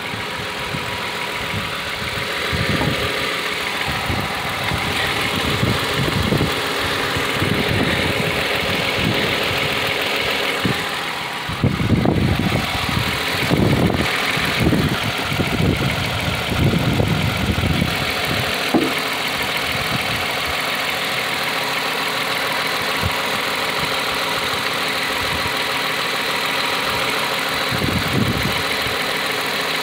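Toyota Highlander V6 engine idling steadily under the hood, heard up close in the engine bay while a mechanic listens for the customer's reported noise. Around the middle, a few seconds of uneven low thumping rise over the idle.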